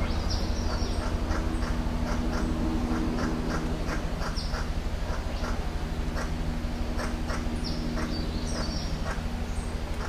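Male blue bird-of-paradise giving its display song while hanging upside down: a low, steady, rapidly pulsing buzz. Short high chirps of other birds come through now and then.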